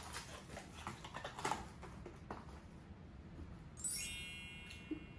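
Packaging being handled: rustling and light clicks, then a brief bright ringing tone about four seconds in, the loudest sound, and a small knock near the end.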